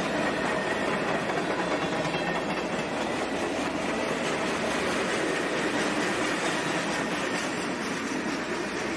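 Norfolk Southern freight train's cars rolling past at close range: a steady rumble and clatter of steel wheels over the rail joints, with a faint high whine held under it.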